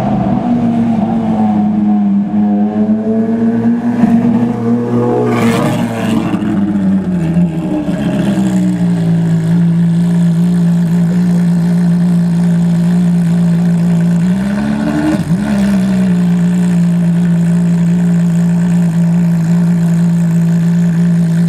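Ferrari FXX's V12 engine running at low revs as the car rolls along, settling to a steady idle about eight seconds in, with one quick throttle blip near the middle.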